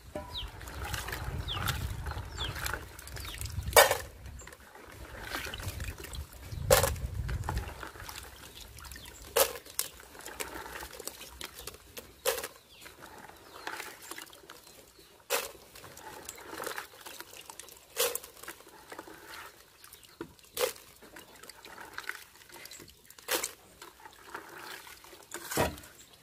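Handfuls of wet, small black shellfish dropped into an aluminium pot, each one clattering about every three seconds, with water splashing and dribbling off the shells and hands in between.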